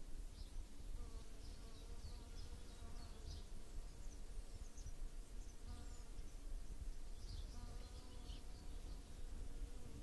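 A flying insect buzzing with a wavering hum, while birds give short high chirps in the background over a low steady rumble.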